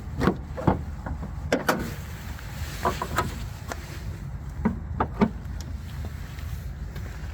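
A series of short knocks and clunks in small clusters over a steady low rumble.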